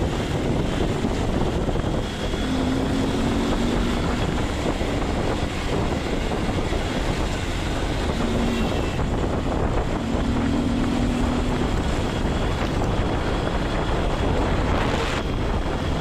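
Steady wind roar buffeting a cheap earphone microphone, mixed with road and traffic noise, with a few brief faint tones through it.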